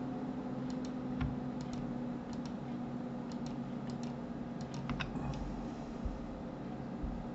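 Computer mouse buttons clicking repeatedly, many of the clicks in quick pairs, with keyboard keys pressed between them, over a steady low hum.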